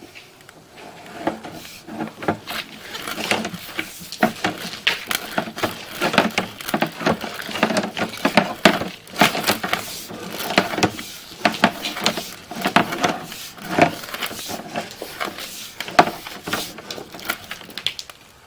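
Irregular clattering knocks and scrapes, several a second, as a sewer inspection camera on its push rod is fed through a clay tile drain pipe.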